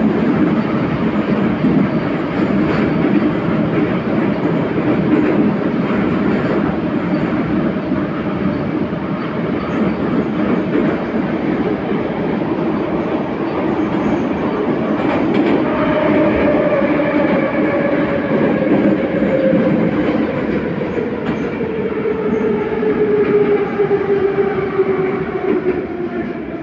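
Inside a moving 81-714.5 metro car: steady rolling noise with wheels clicking over the rails. About halfway through, a whine joins in and falls slowly in pitch as the train slows down.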